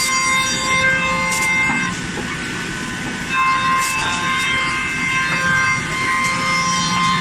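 Spindle of a 5-axis CNC router whining steadily as it carves a wooden chair backrest, with several high held tones over a low hum, slightly quieter for about a second a couple of seconds in.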